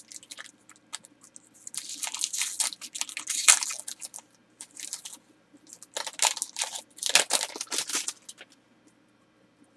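Foil wrapper of a trading-card pack being torn open and crinkled by hand, in two spells of crackling about two and six seconds in.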